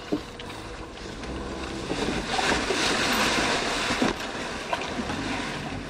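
Subaru Forester driving through a muddy water hole, heard from inside the cabin: water rushing and splashing against the car, swelling about two seconds in and easing off after about four seconds, over the low running of the engine.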